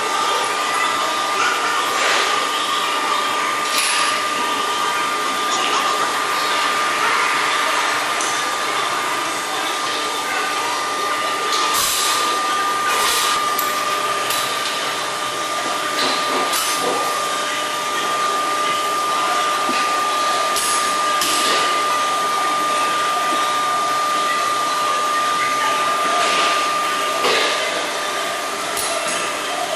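A steady whirring hiss of electric machinery with a constant high whine, like a motor or blower running, with light clicks and knocks now and then.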